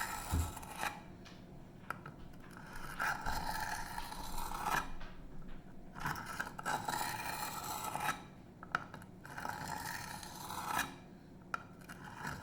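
154CM steel blade of an Emerson Mini A100 knife scraping along a wet coarse sharpening stone in repeated sharpening strokes, each lasting one to three seconds with short pauses between. The chisel-ground edge is very dull and is being ground back on the coarse grit to raise a burr.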